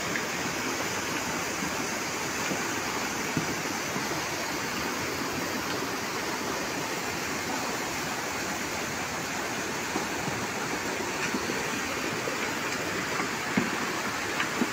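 Muddy floodwater rushing over a hill road in a steady torrent, with a couple of short knocks near the end.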